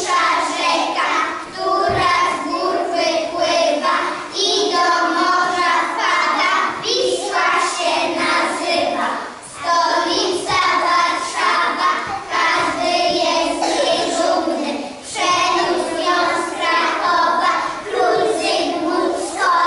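A group of young children singing a song together, in phrases with held notes and a short break about halfway through.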